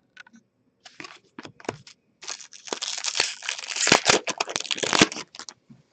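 Trading cards being handled and shuffled, with papery rustling and sharp card-edge clicks. A few light clicks come first, then a dense stretch of rustling from about two seconds in until shortly before the end.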